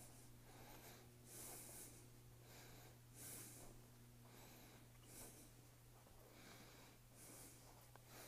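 Near silence: faint breaths close to the microphone, about one every two seconds, over a low steady hum.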